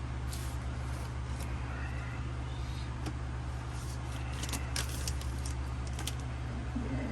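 Pokémon trading cards and foil packs being handled and shuffled, with short light crinkles and clicks, bunched near the start and again from about four to six seconds in, over a steady low hum.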